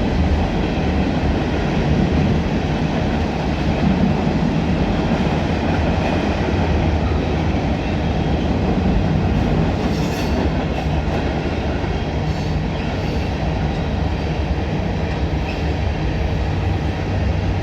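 Norfolk Southern freight train's cars, gondolas among them, rolling past close by: a loud, steady noise of steel wheels on rail.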